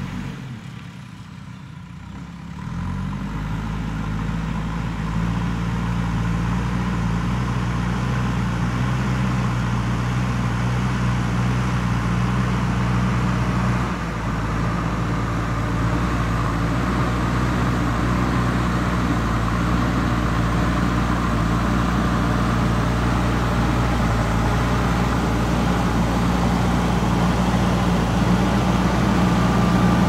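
JCB 3DX backhoe loader's diesel engine running steadily as the front loader bucket pushes soil. It is quieter for the first two seconds or so, then picks up and stays loud, with a brief dip about halfway through.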